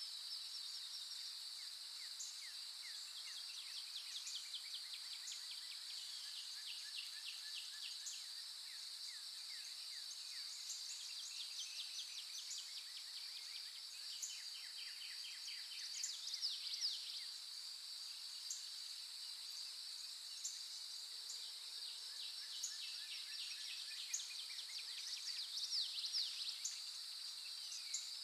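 Steady high-pitched drone of insects trilling without pause, with birds chirping in quick short trills over it; a few louder bird calls stand out about sixteen and twenty-six seconds in.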